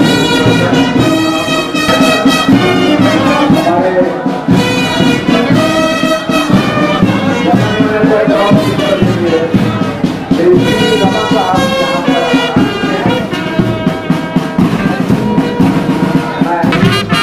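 Brass band of trumpets and tubas playing a tune.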